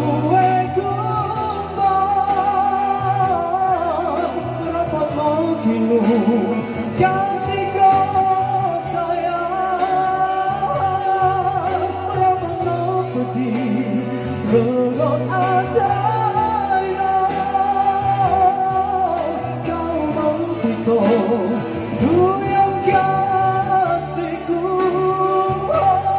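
A man singing a Bajau-language pop song over backing music through a stage PA, with long held notes that bend and waver.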